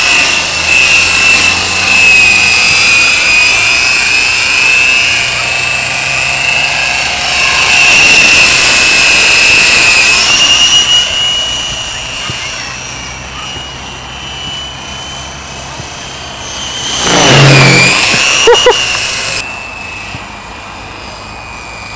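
Lite Machines Corona fixed-pitch RC helicopter in flight, its brushless Mega motor and rotors giving a steady high whine that wavers in pitch as it manoeuvres. About three-quarters of the way through the whine swells loudest and dips briefly in pitch before recovering.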